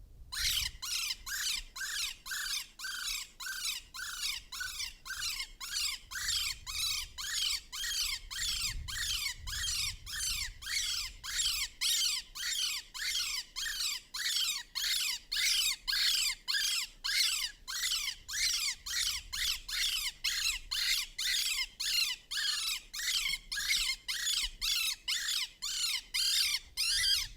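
Electronic predator call playing a shrill prey-distress sound, the same short squealing cry repeated nearly twice a second at an even pace, used to lure in coyotes and foxes.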